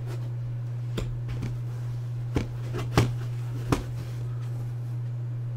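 A hand prying at the foam insert of an aluminium card case makes four light knocks, the loudest about three seconds in, over a steady low electrical hum.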